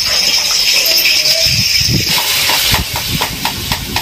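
Hot oil sizzling in an iron kadai; about two seconds in, the sizzle broadens and a wooden spatula stirs and scrapes the pan in quick strokes.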